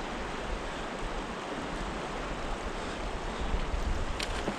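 Riffled river current flowing steadily around a wading angler, a continuous wash of water noise, with a couple of brief sharp sounds near the end.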